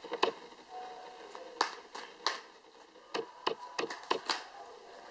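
Tarot cards being shuffled and drawn by hand: a run of sharp, irregular snaps and taps of card on card.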